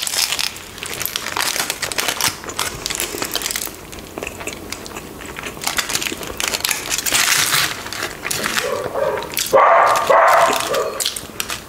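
Close-up chewing of a mouthful of sandwich, with aluminium foil crinkling around it in the hands. Near the end comes a short run of louder voice-like sounds.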